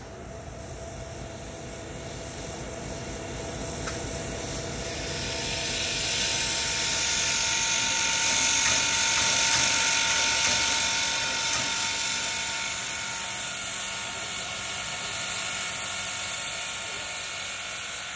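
Steam-hauled excursion train behind Baldwin 4-6-2 Pacific #425 rolling by: fast clicking and rattling of wheels and running gear with a hiss and a faint steady squeal. It builds to its loudest about halfway through, then eases off a little.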